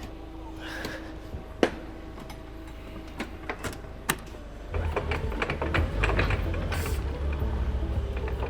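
A few scattered clicks and knocks, then about halfway through a machine starts up with a low rumble and a steady mechanical rattle.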